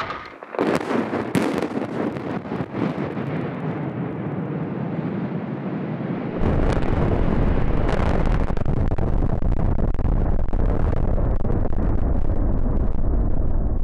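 Demolition charges going off in a quick series of sharp cracks, followed by the rumble of concrete cooling towers collapsing. After a cut, a louder, deeper rumble of the towers coming down, with wind buffeting the microphone.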